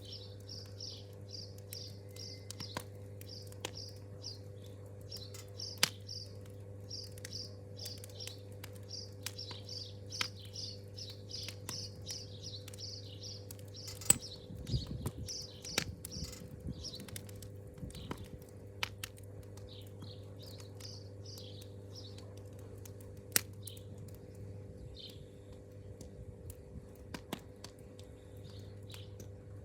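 Campfire crackling with scattered sharp pops, while a small bird chirps in quick runs of about three to four notes a second, growing sparser in the second half, over a steady low hum.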